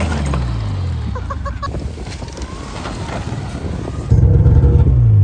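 Snowmobile engine running, its pitch falling as the sled slows. About four seconds in it comes in suddenly louder and close, the pitch dropping again as it settles.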